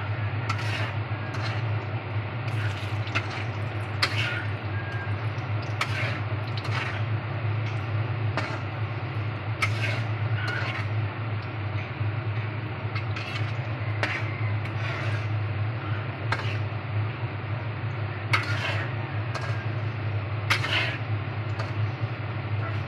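Saba banana strips deep-frying in hot oil, sizzling steadily, with scattered clicks and scrapes of a metal slotted spatula stirring them in the pan. A steady low hum runs underneath.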